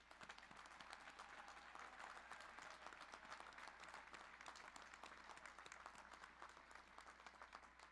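Faint crowd applause: many hands clapping together, swelling a little in the middle and thinning out toward the end.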